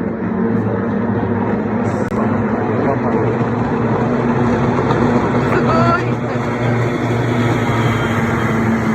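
Racing motorboat engines droning steadily, with voices mixed in and a brief rising tone about five and a half seconds in.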